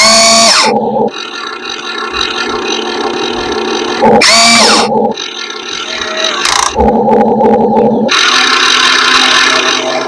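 Small electric motors and gearing of radio-controlled excavators and bulldozers whining steadily. There are two brief louder bursts that sweep in pitch as a motor speeds up and slows, one at the start and one about four seconds in.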